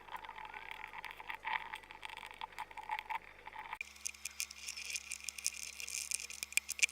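Slime being pressed and worked by hand, giving many small, sticky clicks and pops in an irregular run.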